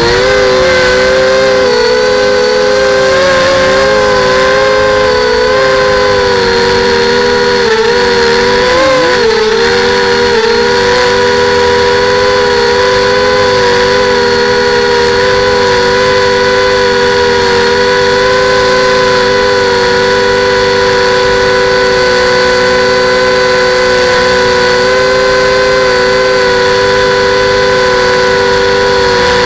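FPV quadcopter's electric motors and propellers whining loudly, heard from the drone's own onboard camera. The pitch wavers and dips during the first ten seconds or so as it manoeuvres, then holds steady while it hovers.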